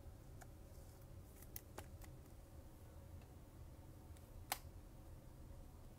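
Near silence with a few faint clicks and taps of Topps Chrome baseball cards being handled and flipped. The sharpest click comes about four and a half seconds in.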